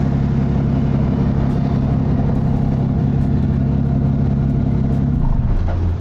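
Car engine idling steadily. About five seconds in, its hum shifts to a lower note.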